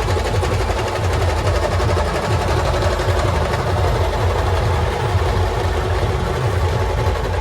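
Imitation of a train running: a fast, steady, mechanical chugging rhythm.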